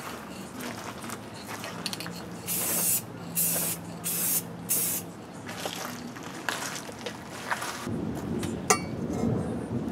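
Aerosol spray paint can spraying paint onto a welded steel hitch in four short hissing bursts around the middle, with scattered light clicks. A low rumble comes in near the end.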